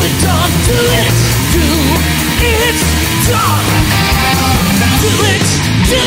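Rock song with a singing voice over a steady driving beat and low bass notes, played as a music track.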